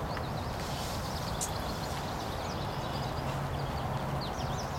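Many small birds chirping in short rising notes, over a steady rush of background noise.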